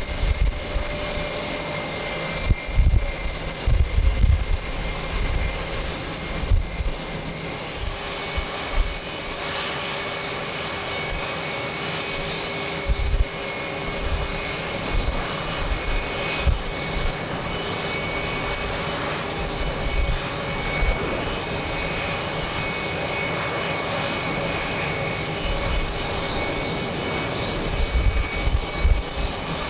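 Embraer E175's twin GE CF34 turbofan engines running with a steady high whine, growing louder and fuller about eight seconds in as the jet powers up for its take-off roll. Gusts of wind buffet the microphone at irregular moments throughout.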